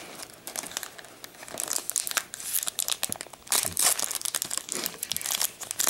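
Foil wrapper of a Magic: The Gathering booster pack crinkling and tearing as it is pulled open by hand, in irregular crackles with two louder rips midway.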